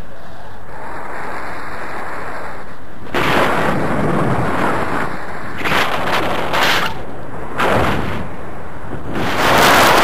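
Rushing airflow buffeting the action camera's microphone on a tandem paraglider in a steep banked turn. It is a loud, steady rush that swells into stronger gusts several times.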